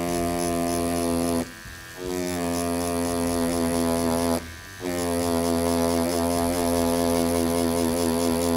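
Tattoo machine running with a steady pitched buzz while tattooing into silicone practice skin, stopping briefly twice, about a second and a half in and again just past the middle.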